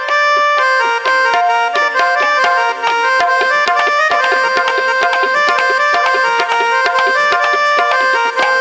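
Roland electronic keyboard playing a fast, busy passage of many short notes over tabla-style percussion, with quick clicks throughout. The passage is meant as the jingling of payal anklet bells coming closer from afar.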